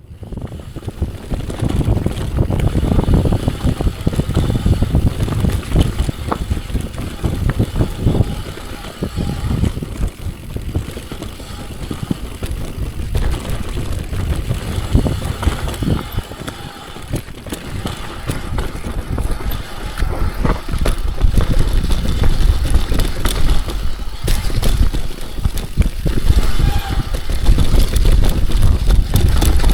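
Mountain bike ridden fast downhill over a rooty dirt trail: tyres on dirt and roots, with many short rattles and knocks from the bike and a heavy, uneven low rumble, louder in the second half.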